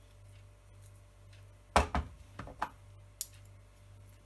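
Metal teaspoons clicking against each other and against a stainless steel pot, about five light taps in quick succession starting a little under two seconds in, as sticky curry paste is scraped off one spoon with the other.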